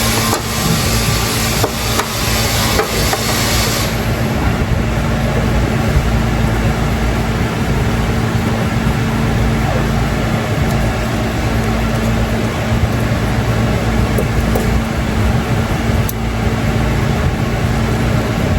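Loud, steady machine noise with a low rumble and hum; a high hiss on top stops about four seconds in while the rumble carries on.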